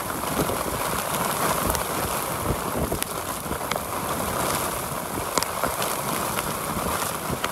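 Storm wind and driving rain with hail: a steady rush with scattered sharp ticks.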